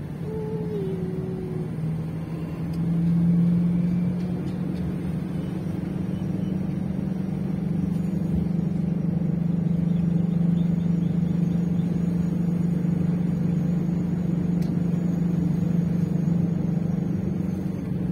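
A car's engine and tyre noise heard from inside the cabin while driving at a steady pace: an even low drone that grows a little louder about three seconds in.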